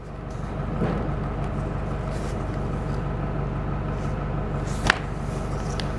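An engine running steadily, with one sharp click about five seconds in.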